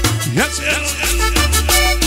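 Cumbia music playing loud over a dance sound system, with a heavy bass line and steady percussion. About a quarter second in, the bass drops out briefly under a short rising glide.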